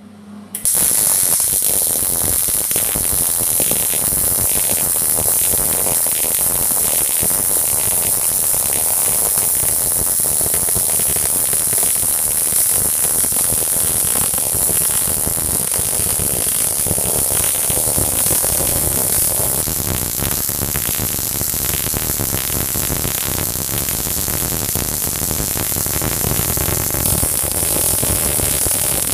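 MIG welder arc running steadily on steel, a continuous crackling sizzle with a strong hiss, starting about half a second in.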